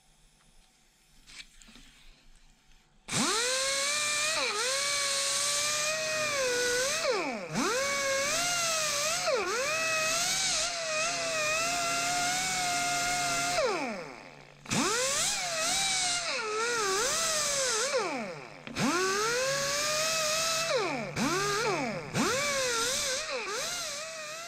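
Handheld die grinder with a cup brush, cleaning the gear head of a vintage ratchet. It starts about three seconds in with a high whine and hiss, and its pitch sags each time the brush is pressed onto the metal. It stops and restarts once a little past halfway, then winds down at the end.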